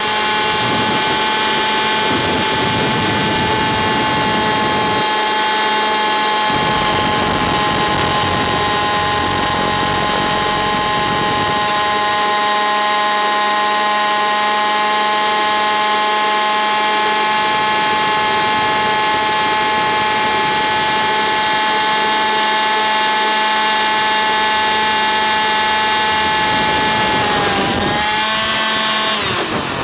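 Two-stroke gasoline engine and rotors of an RC helicopter running steadily at a constant pitch; near the end the pitch briefly dips and wavers.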